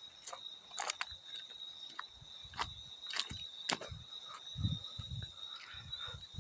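Field cricket singing a steady, high, unbroken trill, with irregular sharp water splashes and drips over it.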